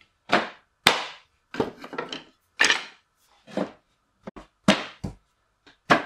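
Plywood offcuts dropped one at a time into a plywood bin: a string of about nine separate wooden knocks and clatters.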